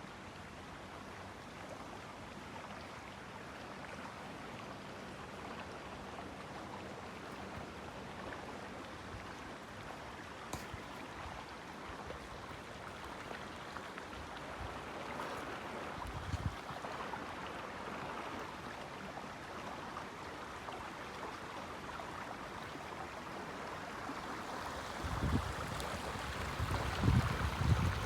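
Steady rushing outdoor noise during a snowfall, with no distinct tones. Low wind buffets hit the microphone in the last few seconds.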